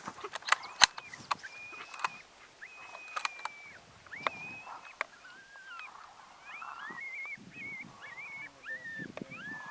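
Coyote yipping and howling: many short, high, wavering cries that slide up and down, following a rifle shot at a coyote. Several sharp clicks come in the first few seconds.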